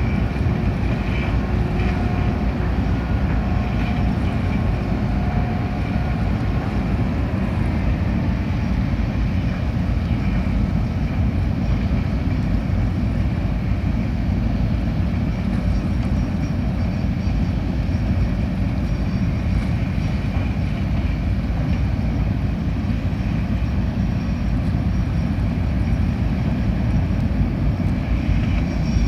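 Car ferry's engines and propellers running in a steady low rumble as the ship turns around in the harbour before docking.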